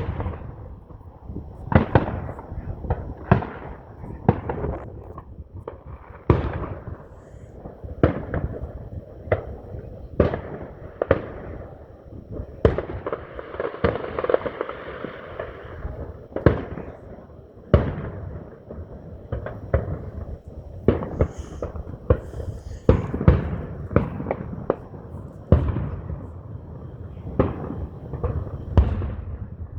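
Fireworks going off in quick succession: dozens of sharp bangs, often several a second, with a stretch of steady rushing noise about halfway through.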